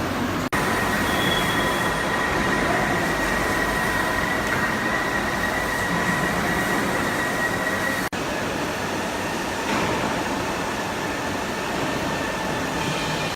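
CNC press brake running: steady machine noise with a high, steady whine, which cuts out for an instant twice.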